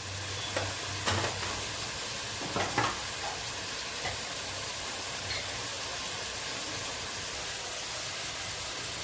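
Onion-tomato masala sizzling steadily in hot oil in a pan, with a few clicks of a spoon stirring against the pan in the first three seconds, just after spice powder has been added.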